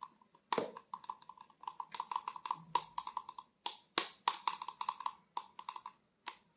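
Rapid plastic clicking and tapping from a toy action figure being handled, with several sharper knocks in among the runs of quick clicks.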